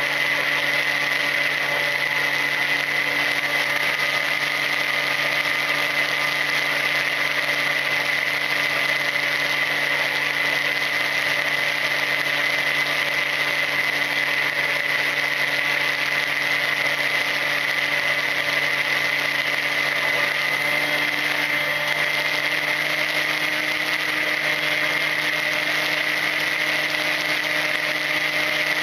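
Volantex Ranger EX RC plane's electric motor and propeller whining steadily at cruise throttle, under wind rush from the airflow over the onboard camera.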